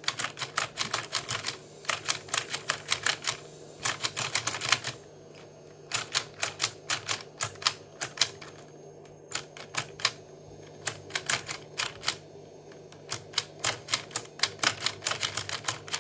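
Akedo Warriors battle base and figure clicking: rapid clatter of hard plastic as the joystick is worked, the figure's punching arm striking a toy training dummy. The clicks come in quick runs of about five or six a second, with a few short pauses.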